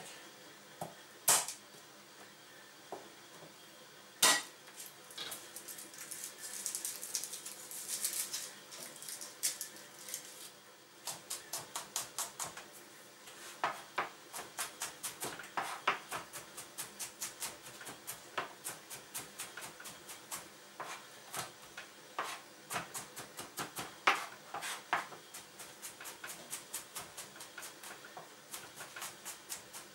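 Chef's knife chopping garlic on a plastic cutting board: a few single knocks at first, then, from about a third of the way in, a long run of quick, even knife strikes on the board, about three a second, as the garlic is minced.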